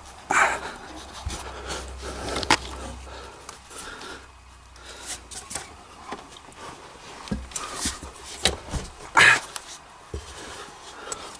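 A man breathing hard, with scattered knocks, clicks and rustling as he crawls and handles things in a cramped space; the loudest breaths come just after the start and about nine seconds in.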